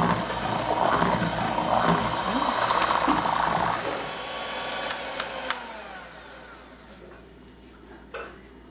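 Electric hand mixer running, its beaters churning a thin batter of condensed milk and eggs in a plastic bowl. About halfway through the motor slows with a falling whine and fades away, and a short knock comes near the end.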